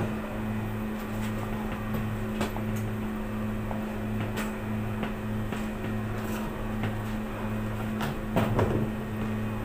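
Steady low hum of bakery equipment, its lower part pulsing a little more than once a second, under light clicks and knocks of a plastic tub and a metal bun tin being handled; a louder clatter about eight seconds in as the plastic tub is lifted and its lid moved.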